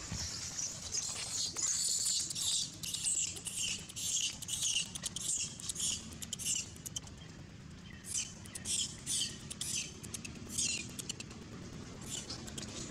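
A baby long-tailed macaque giving rapid, high-pitched squeaks, many in quick succession at first and then more spaced out.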